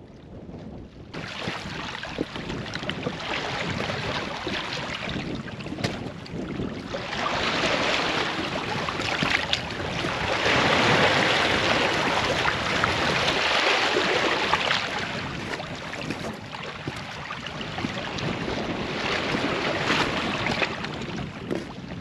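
Small sea waves washing in over and around shoreline rocks, swelling and easing every few seconds, with wind buffeting the microphone.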